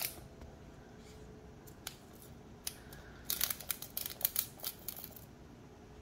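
Dry clicks and scrapes of a cat batting a cicada about on a hardwood floor: a few single clicks, then a quick flurry of them from about three to five seconds in.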